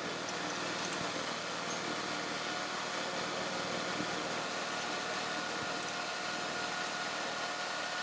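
Steady background hum with a faint held tone, and a few light scattered clicks and knocks.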